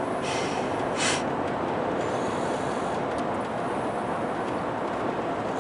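A sleeping person snoring inside a moving car: two short, airy snoring breaths, the second and louder about a second in, over steady road and engine noise in the cabin.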